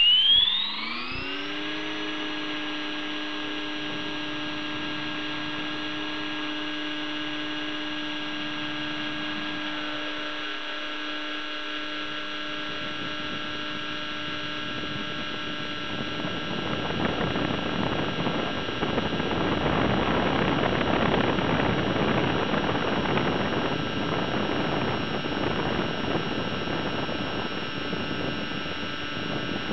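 Align T-Rex 600 ESP electric R/C helicopter heard from its own camera: its motor and gear whine, several tones at once, finishes rising in pitch in the first two seconds as the rotor spools up, then holds steady at flying speed. From about 16 seconds in, a rushing noise of air and rotor wash builds and grows louder as it climbs away.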